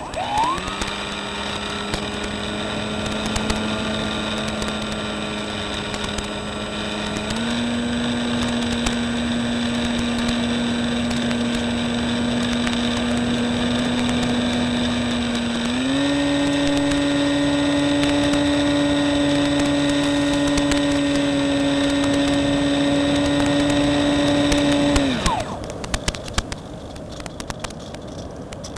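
Electric motor and propeller of an RC motor glider spooling up with a rising whine, then running at a steady pitch. The throttle is stepped up twice, about 7 s and 16 s in, each time raising the pitch and loudness. The motor is cut about 25 s in, its whine falling away quickly, and crackling static remains.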